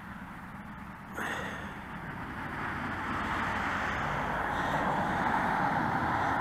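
Steady outdoor rushing noise, somewhat louder from about a second in, of the kind made by distant road traffic or wind.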